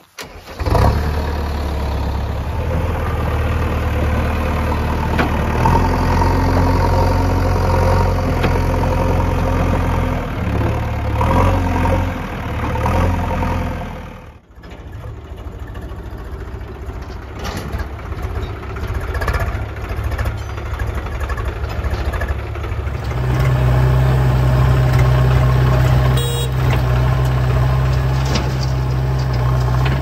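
Diesel engines of a JCB 3DX backhoe loader and a Swaraj 735 FE tractor running close by. The engine note changes abruptly about halfway through and again about three-quarters of the way through, the last part with a deeper, stronger hum.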